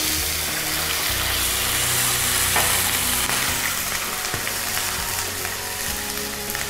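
Fish fillet sizzling steadily as it fries in a hot frying pan.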